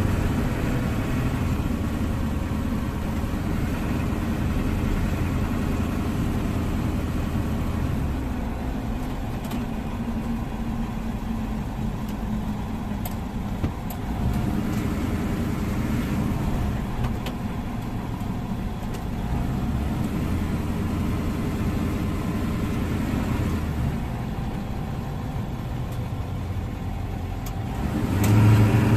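Car engine and tyre noise heard from inside the cabin while driving slowly; it swells louder with a stronger low hum near the end.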